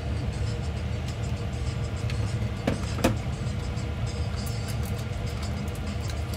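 Steady kitchen noise: a low hum with an even hiss over it, and two sharp knocks close together about three seconds in.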